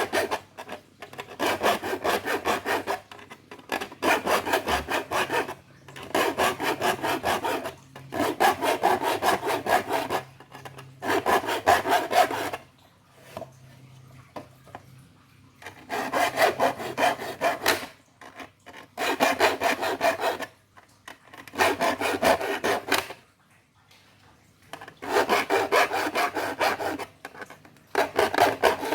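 Metal file rasping across the teeth of a hand wood saw, in bursts of quick strokes lasting a second or two each, with short pauses between teeth and a longer pause about halfway through: the saw is being sharpened.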